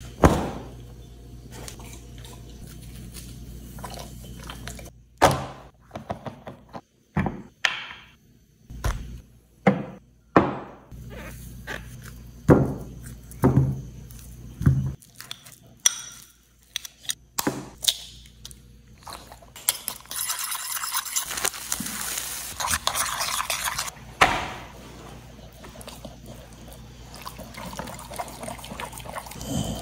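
Kitchen preparation sounds: a string of sharp knocks and thuds of utensils and containers, then about four seconds of steady hissing noise about two thirds of the way through. A low steady hum sits underneath in the first half.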